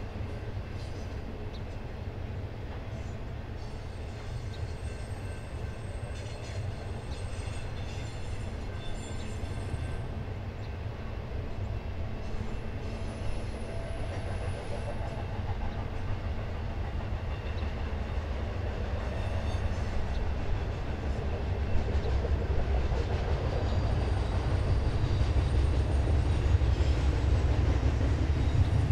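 Intermodal freight train rolling by on the BNSF main line: a steady low rumble of wheels and cars that grows louder over the last third.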